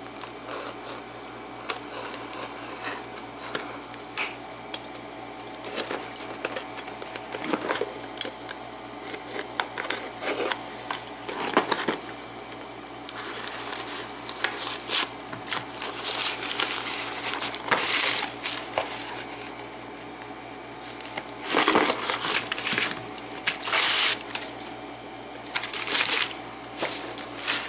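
A package being opened by hand: tape and packaging tearing and rustling in several hissing bursts, with clicks and knocks as the contents are handled.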